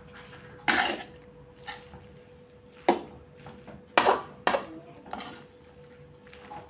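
Metal spatula clanking and scraping against a metal wok as noodles and mustard greens are stirred and tossed, in irregular strokes with four loud clanks among softer scrapes.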